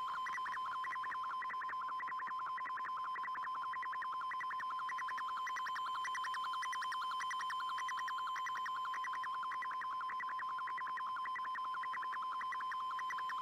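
Shortwave digital picture transmission (fldigi MFSK image mode) received on an Icom IC-R8600: a steady whistle with rapid warbling tones pulsing about four to five times a second as the image is sent line by line.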